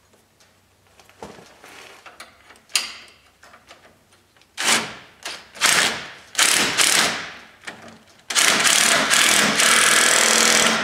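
Cordless impact wrench run in several short bursts, then held in one steady run of about two and a half seconds near the end, tightening the bolts of the sway bar drop brackets.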